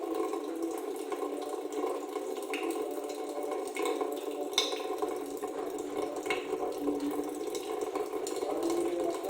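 Steady rushing noise like running water, with a few faint clicks scattered through it.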